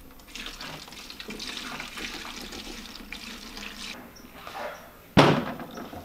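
Diesel fuel pouring steadily from a metal jerry can through a funnel into a diesel heater's plastic fuel tank, for about four seconds. About five seconds in, one sharp, loud thump.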